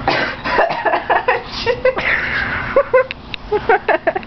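A girl's rapid run of short, sharp vocal bursts: hiccups mixed with giggling.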